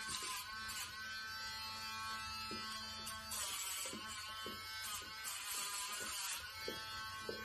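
Electric pet nail grinder buzzing steadily. Its pitch dips and a grinding hiss rises each time it is pressed against a dog's claw, twice for about a second near the middle.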